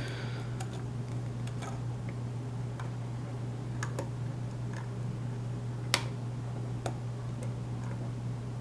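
Lock pick and tension wrench working the pins of a pin-tumbler lock with a Schlage keyway: scattered light clicks and ticks, one sharper click about six seconds in, over a steady low hum.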